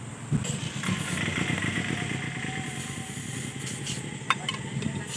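Compressed air hissing into a 1000-20 truck tyre through an air hose on its valve, over a low steady rumble. A sharp metal tap sounds about four seconds in.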